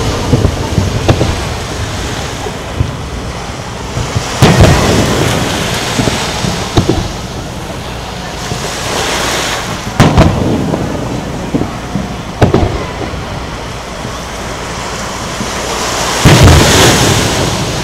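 Aerial firework shells bursting as a series of sharp booms several seconds apart, each trailing a low rolling rumble, with the heaviest one near the end.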